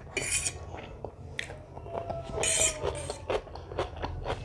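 Someone eating egg chowmein: cutlery scraping and clicking on a plate between mouthfuls, with chewing. There are a few short scrapes, one near the start and a longer one a little past halfway, and scattered clicks.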